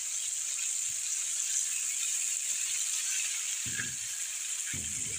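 Cornflour-coated chicken legs frying in hot oil in a karahi: a steady crackling sizzle. Two low bumps come near the end.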